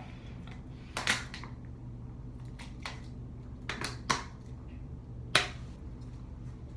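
Thin plastic water bottle crackling as it is squeezed and pushed against the mouth: a few sharp crinkles, the loudest about a second in and about five seconds in. A steady low hum runs underneath.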